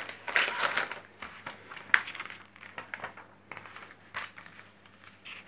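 Paper and foil rustling as a glossy magazine is opened and its pages turned and flattened by hand beside a crinkly foil toy packet, densest in the first second, with a single sharp tap about two seconds in.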